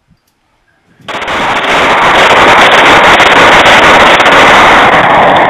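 Glock 18 machine pistol firing full-auto in one long sustained burst, starting suddenly about a second in and running on for over four seconds, loud enough to overload the microphone.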